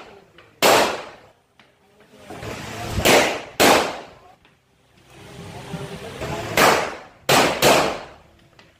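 Pistol shots, about six at irregular spacing, some coming in quick pairs, each followed by a ringing echo off the walls of an indoor range.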